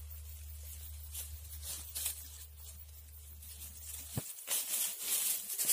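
Grass and reed stems rustling and crackling against the phone as it is held among them, with scattered handling clicks, louder near the end.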